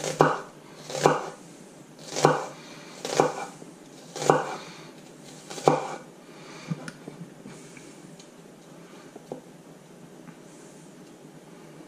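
Kitchen knife chopping a peeled onion on a wooden chopping board: six strokes striking the board about a second apart, then only a few faint taps.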